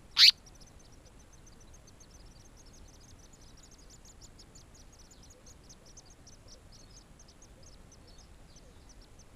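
African paradise flycatcher nestlings begging at the nest: a long run of faint, thin, high cheeps, several a second, that stops near the end. Near the start comes one loud, very brief high note that sweeps down in pitch.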